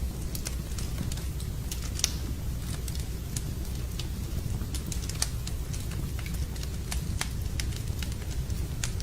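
Wood fire burning in a fireplace: a steady low rumble of the flames with sharp crackles and pops at irregular moments, the loudest pop about two seconds in.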